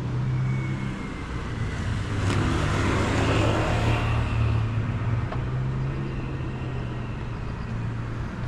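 Street traffic: a car passes, its noise swelling and fading a few seconds in, over a steady low hum.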